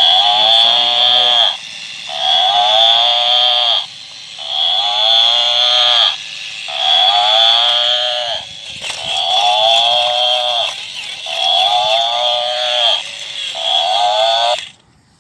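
Battery-operated toy rhinoceros playing a recorded animal call over and over through its small, tinny speaker: about seven calls, roughly two seconds apart, with a steady high whine under them. The calls cut off suddenly near the end.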